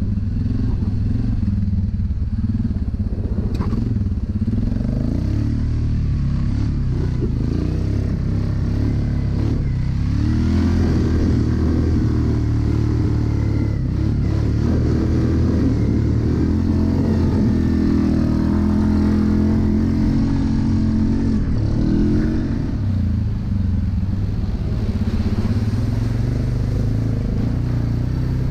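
ATV engine running as the quad is ridden, its pitch rising and falling as the throttle is opened and eased off several times.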